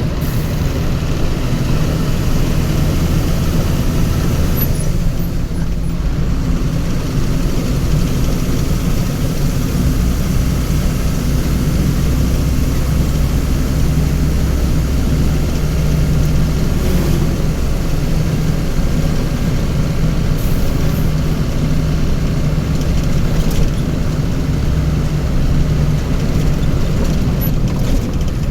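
A motor vehicle's engine running steadily, a deep continuous hum whose low note strengthens about ten seconds in and shifts a little through the rest.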